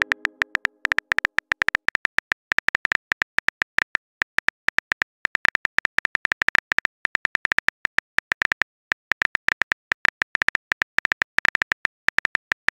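Phone keyboard key-click sounds, generated by a texting-story app as a message is typed: a rapid, uneven stream of short taps, several a second, with a few brief pauses.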